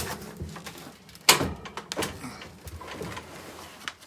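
Knocks and scrapes of a heavy window air conditioner's metal cabinet being shifted and turned around, with one loud knock about a second in.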